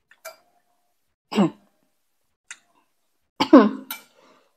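A woman eating salad makes two short wordless vocal sounds that fall in pitch, the second, about three and a half seconds in, longer and louder, with a few faint clicks between them.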